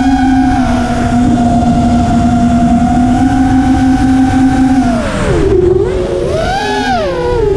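Spedix Black Knight 210 racing quadcopter's motors and propellers whining, with wind rushing over the onboard microphone. The pitch holds steady for about five seconds, then drops and swings up and down with the throttle.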